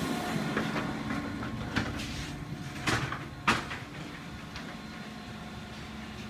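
Steady low background hum with a few sharp knocks and clicks. The loudest knock comes about three and a half seconds in.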